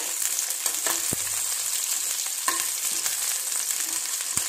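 Whole green chillies frying in hot mustard oil in a non-stick pan, a steady sizzle full of fine crackles. A steel spoon stirs them, knocking against the pan about a second in and again near the end.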